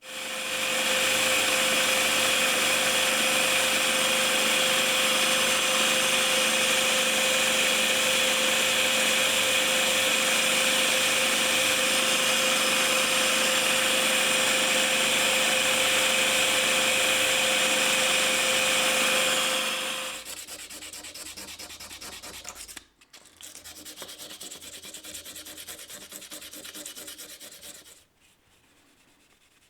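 Power sander running steadily against the work, with a constant hum under the grinding noise. About two-thirds of the way through it gives way to a quieter sanding sound, which breaks off briefly once and stops near the end.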